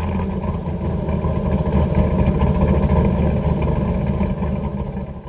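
Car engine idling steadily, with a rapid, even pulsing beat, beginning to fade near the end.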